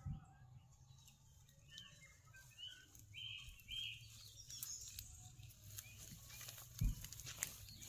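Birds chirping in short calls, with faint rustling of leafy ground cover and grass as a cat pushes through it. A single dull thump near the end is the loudest sound.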